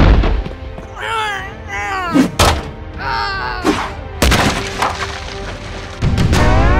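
Cartoon sound effects over music: a hard thud at the start and more impacts, one with a bomb blast about four seconds in, between squeaky, wavering pitched cries. A rising whistle-like sweep starts near the end.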